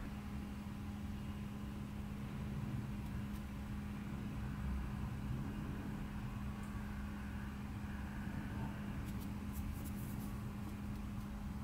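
Indoor room tone: a steady low hum over a low rumble, with a few faint ticks near the end.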